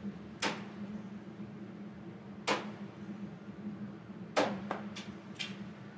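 Soft-tip darts striking a Granboard electronic dartboard: three sharp thuds about two seconds apart, the last followed by a couple of lighter clicks.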